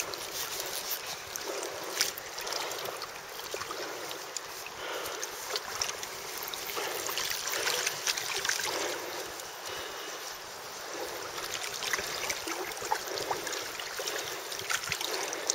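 River water running and lapping, with scattered small clicks and knocks throughout.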